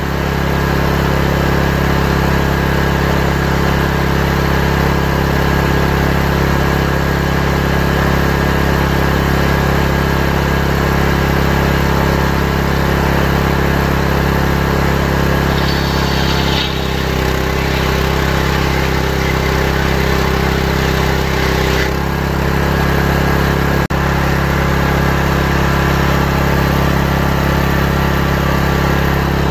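Large circular table saw running steadily, its drive unit giving a constant engine-like hum with the blade spinning. The tone shifts for about five seconds past the middle, and there is one sharp click near the end.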